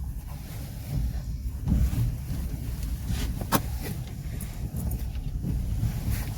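Passenger train running along the track, heard from on board: a steady low rumble of the wheels on the rails, with sharp clicks, the loudest about three and a half seconds in and a few fainter ones shortly after.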